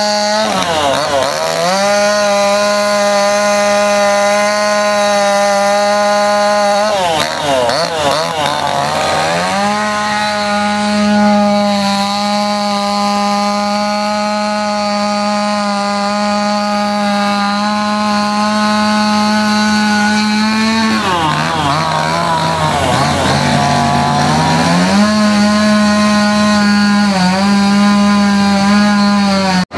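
Gas chainsaw running at high revs, carving into a wooden stump. Its steady pitch dips and wavers three times: about a second in, at about seven seconds, and again from about twenty-one to twenty-five seconds.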